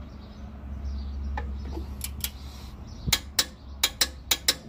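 Ratchet wrench clicking, with a few scattered clicks and then, about three seconds in, a quick run of clicks three or four a second, over a steady low hum.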